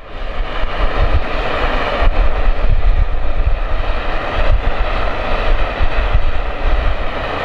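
Small metal-melting furnace running, a steady loud rushing noise with a low rumble from its forced-draught fire, with copper and bronze ingots melting inside.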